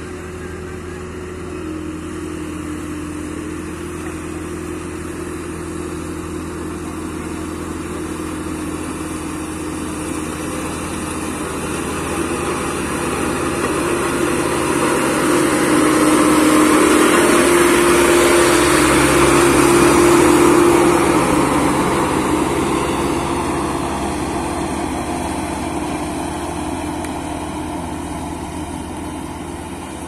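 HAMM HD 90 tandem road roller's diesel engine running steadily as the roller drives over fresh asphalt. It grows louder as the roller comes close, is loudest a little past halfway, then fades as it moves away.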